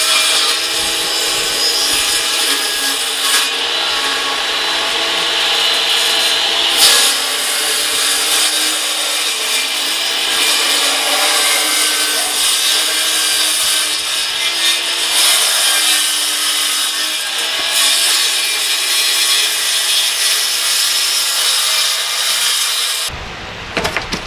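Circular saw running under load, ripping one long continuous cut through a thin plywood board along a straight-edge guide, trimming a homemade track-saw jig's base to the blade line. The cut stops abruptly about a second before the end.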